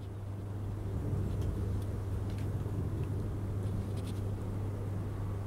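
Clockwork spring motor of a 1930 Mengel Playthings Miss America toy speedboat running: a steady low hum with a few faint clicks.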